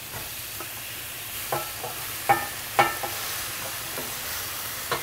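Raw ground beef sizzling as it is scraped from a bowl into a hot enamelled cast-iron skillet with a wooden spatula, with three sharp knocks from the spatula and bowl around the middle.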